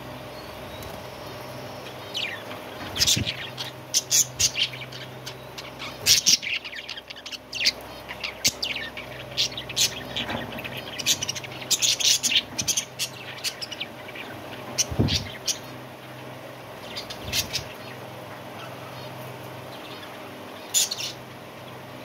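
Budgerigars chirping: many short, sharp high chirps in irregular bursts, busiest in the first half and coming again twice near the end, over a steady low hum.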